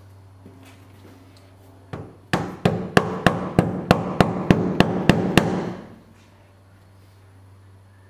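Black rubber mallet striking a wooden wedge at the top mount of a 1987 Porsche 911's front strut, driving the wedge to shift the strut's top bearing under the car's weight for the camber adjustment. A single knock, then about a dozen quick, even blows, roughly three a second, stopping a few seconds before the end.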